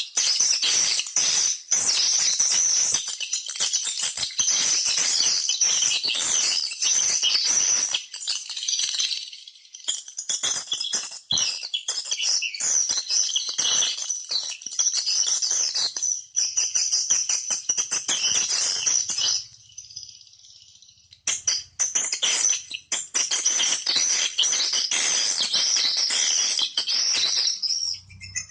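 Swiftlet lure-call recording: a dense, rapid twittering of edible-nest swiftlet chirps and clicks, played to attract swiftlets to a nesting house. It pauses briefly about two-thirds of the way through.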